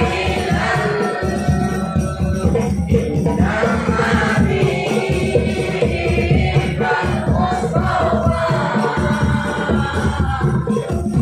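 Live music: several voices singing together over busy hand-drum percussion with jingling, like tambourine jingles.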